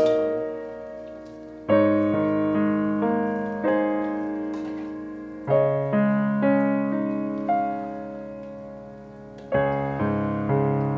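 Background piano music: slow chords struck about every four seconds, each one left to ring and fade, with a few single notes in between.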